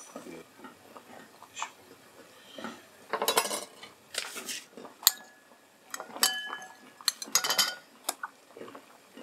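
Metal spoon scraping and clinking against a ceramic bowl while stirring butter softened in a warm water bath. There are several short scrapes, and a few sharp clinks in the middle leave the bowl ringing briefly.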